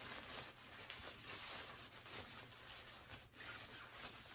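Faint, irregular rustling of the ghoul prop's black fabric robe as it is handled and adjusted.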